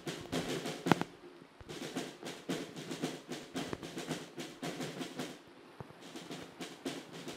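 Marching snare and bass drums playing a busy, steady beat with drum rolls, with one loud hit about a second in.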